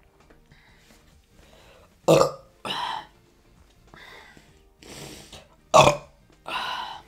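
A woman burping loudly twice, about two seconds in and again about six seconds in, each burp followed by a shorter, breathier one. The gas comes from drinking a large amount of carbonated Coca-Cola with Mentos.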